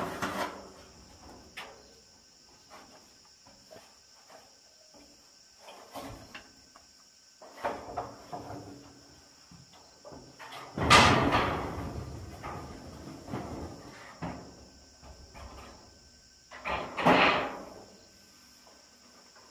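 Corrugated metal roofing sheets clattering and rattling as they are handled and lifted onto a timber roof frame, with the loudest clatter about eleven seconds in and another near the end.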